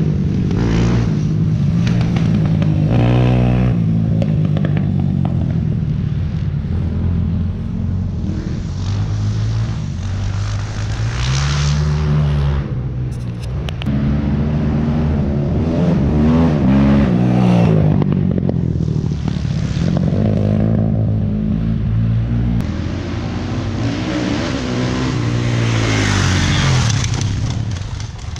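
Dirt bike engines revving and passing by several times, the pitch rising and falling with each pass.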